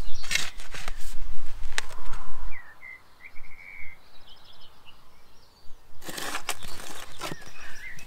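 Steel spade digging into clay soil, with repeated scrapes and chops of the blade. In a quieter stretch in the middle a bird chirps briefly.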